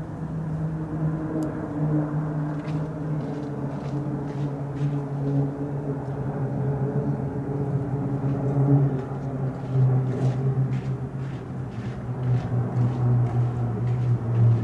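A formation of single-engine propeller aircraft passing overhead, their engines running in a steady drone. The drone drops in pitch partway through as they go by.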